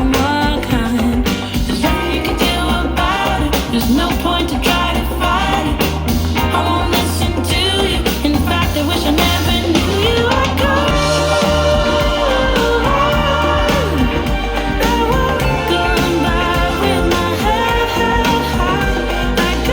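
A song with singing, drums and bass played through a portable Bluetooth speaker at about two-thirds volume, recorded binaurally from a metre away. The drum hits are sharper in the first half; from about halfway through, long held sung notes come to the fore.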